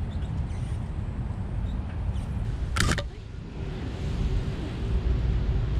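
Low rumble of wind buffeting the microphone while riding a bicycle along a paved path, with the tyres rolling underneath. A brief sharp noise comes just under three seconds in.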